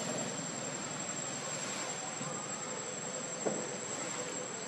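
Steady high-pitched insect chorus, a single held tone over a hiss, with one short knock about three and a half seconds in.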